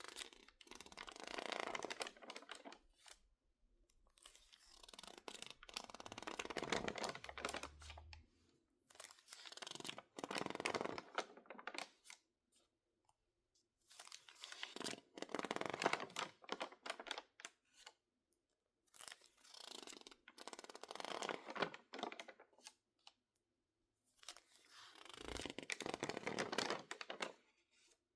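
Stiff, crinkled magazine pages, dried after being misted with water, crackling as they are worked by hand. There are six bursts of dense crackling, each two to three seconds long, with short quiet pauses between.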